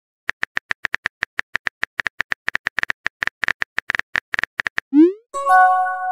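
Texting-app sound effects: rapid keyboard typing clicks, about nine a second, for four and a half seconds. About five seconds in comes a quick rising swoosh as the message is sent, then a short chord-like chime near the end.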